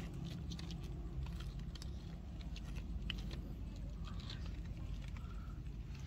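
Light rustling and scattered clicks as a freshly picked pineapple is handled by its spiky leaves, over a steady low rumble.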